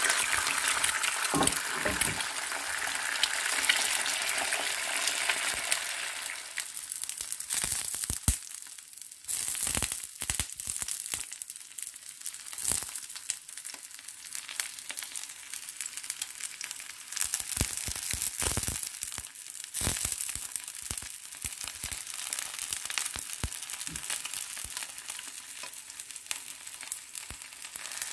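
Eggs frying in oil on a griddle pan, sizzling with crackles and pops. The dense sizzle thins to scattered pops over a quieter hiss about six seconds in.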